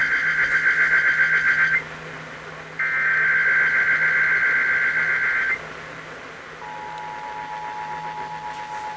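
Emergency Alert System test tones: two bursts of the SAME digital header data, the first ending about two seconds in and the second lasting about two and a half seconds, then about a second later the steady two-tone EAS attention signal begins. A faint low hum runs underneath.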